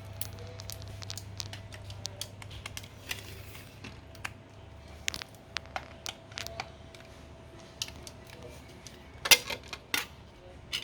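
Irregular small clicks and taps of objects being handled, with a louder clatter about nine seconds in, over a steady low hum.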